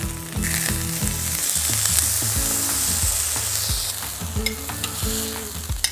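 Hamburger patties sizzling in a hot frying pan as they are turned with a spatula. The sizzle swells about half a second in and fades after about four seconds, over light background music.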